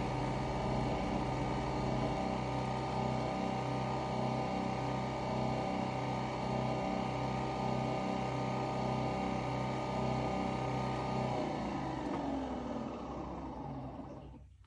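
Nespresso Vertuo Next coffee machine brewing: a steady mechanical hum with a regular pulsing. About twelve seconds in it winds down with a falling whine and cuts off shortly before the end as the brew finishes.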